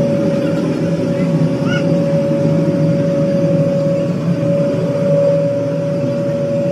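A steady machine drone with one constant whining tone running over it, holding the same pitch and loudness throughout.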